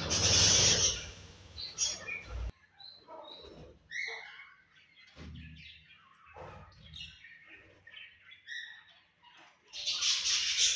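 Budgies chirping in many short calls that slide up and down in pitch, with a loud rustling flurry at the start and another near the end.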